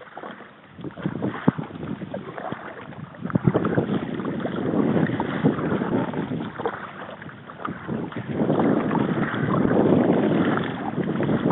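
Water splashing and slapping against the bow of a sit-on-top kayak moving through choppy water, with wind buffeting the microphone. It comes in uneven surges and grows louder from about eight seconds in.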